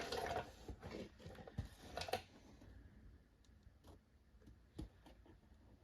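Faint handling noises: a couple of seconds of rustling and shuffling, then scattered light clicks and taps.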